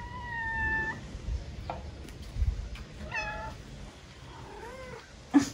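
Cat meowing three times: a long, slightly falling meow at the start, a short meow about three seconds in, and a rising-then-falling meow near the end. A sharp knock just before the end is the loudest sound.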